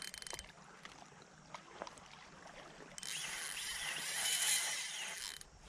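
Spinning reel cranking briefly at the start, then a few faint clicks. From about three seconds in comes a steady buzz lasting some two and a half seconds, as a hooked barracuda pulls line off against the reel's drag.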